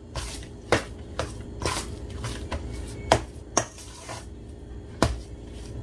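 Metal spoon scraping and knocking against a stainless steel bowl while stirring mashed potatoes, in irregular strokes roughly every half second.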